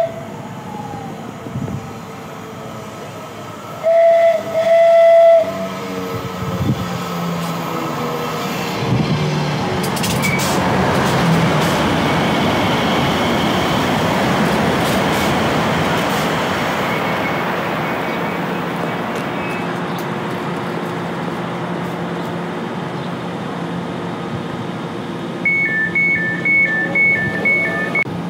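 A train horn gives two short blasts, then a train passes at speed with a rushing rail noise that swells over a few seconds and slowly fades. Near the end comes a rapid two-tone electronic beeping.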